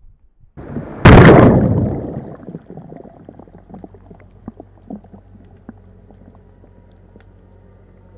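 Crab pot with a camera mounted on it hitting the sea with one loud splash about a second in, fading over a second or so. Then a low steady hum with scattered small clicks and knocks underwater as the pot settles on the seabed.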